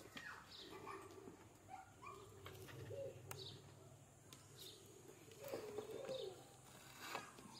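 Faint background birds: scattered short chirps and whistles, with a lower warbling call about five and a half seconds in, over a steady faint low hum.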